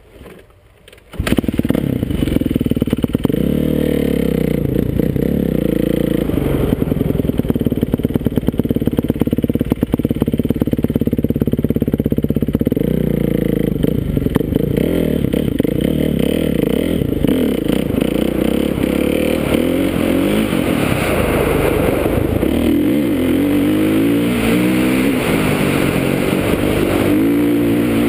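Kawasaki KX450F motocross bike's single-cylinder four-stroke engine starts about a second in, then runs and revs, its pitch rising and falling again and again as the bike is ridden off.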